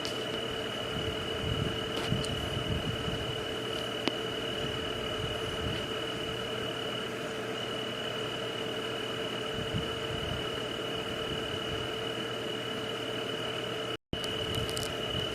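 Night-time nature ambience: a steady, high insect drone over an even hiss, with irregular low throbs underneath. The sound cuts out completely for an instant near the end.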